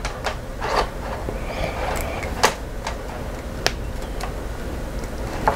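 Handling noise from a small pull-chain fan switch, its wires and multimeter test leads being moved in the hands: scattered light clicks and taps, about six of them.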